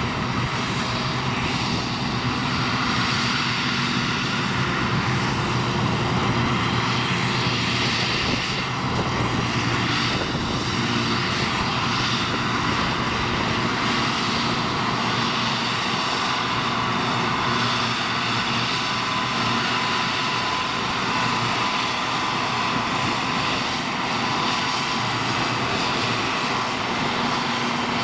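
Ford TW-series tractor's six-cylinder diesel working steadily under load, driving a trailed forage harvester that chops grass and blows it into a silage trailer, with a second tractor running alongside. A thin high whine comes in about four seconds in.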